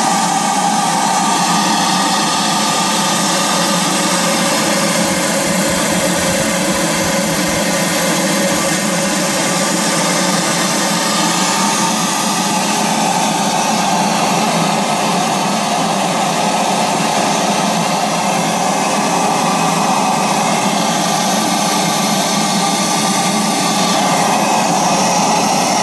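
D-10 model steam engine of a paddle-wheel steamer running under steam: a loud, steady hiss with a constant mechanical hum underneath.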